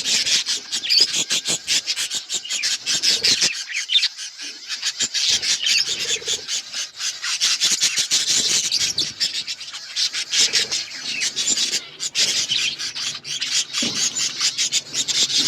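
A flock of budgerigars chattering and chirping without a break, with many rapid clicks mixed into the chatter.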